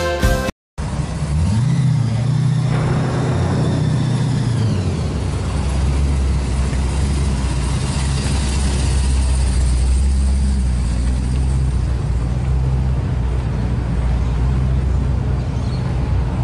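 A car engine running. Its pitch rises about a second and a half in and holds, then settles at about five seconds into a deep, steady low idle that runs on.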